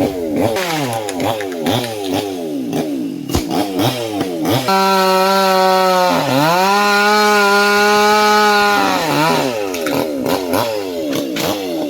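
Two-stroke chainsaw engine revving up and down in quick, repeated surges. For about four seconds in the middle it is held at a steady high pitch and is louder, with one brief dip in pitch about halfway through that hold; then it goes back to surging.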